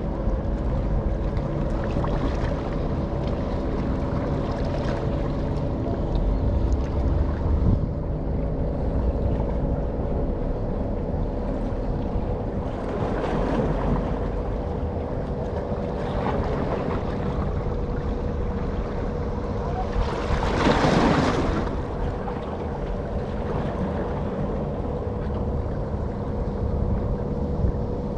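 Large container ship under way: a steady low engine rumble with a constant hum. A loud rush of wind or water noise swells up briefly about 21 seconds in, with a smaller one around 13 seconds.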